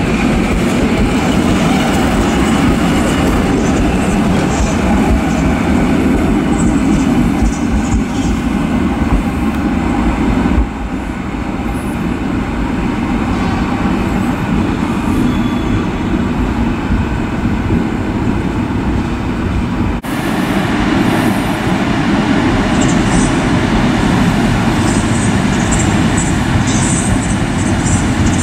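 Passenger trains running through a station: the steady rolling noise of coaches moving along the platform. The sound changes abruptly about 11 seconds in and again about 20 seconds in, the last part from an EP07 electric locomotive pulling a train in.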